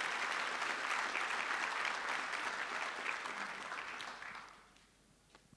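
Audience applauding, dying away about four and a half seconds in.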